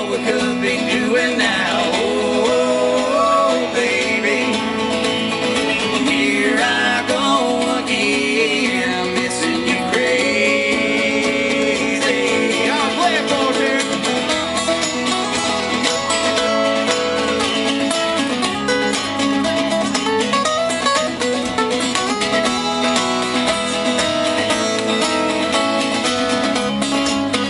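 Live country song on two acoustic guitars, strummed steadily, with a man singing lead through the first half; after about halfway the voice drops out and the guitars carry on alone.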